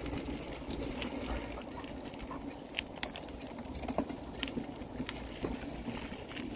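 Bicycle riding over a dirt and gravel trail: steady tyre noise with a low rumble, and scattered sharp clicks and rattles.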